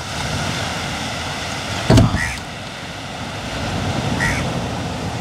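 Steady outdoor background noise with one sharp knock about two seconds in and two brief high chirps.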